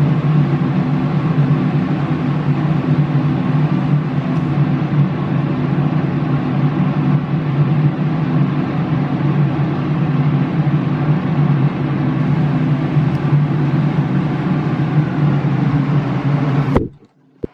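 A machine running steadily with an even low hum, cut off suddenly near the end.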